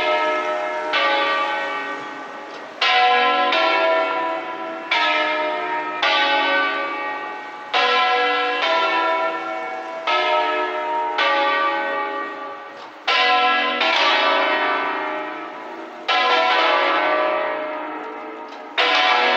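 Church bells of the campanile of San Martino at Tribano ringing: several bells of different pitch sounding in turn, a new stroke every one to two seconds, each ringing on and fading before the next.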